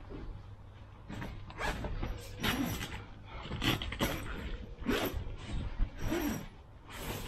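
Nash Titan T1 Mk2 bivvy being adjusted by hand: its fabric rustling and frame creaking and clicking in a run of irregular strokes, about two a second, starting about a second in.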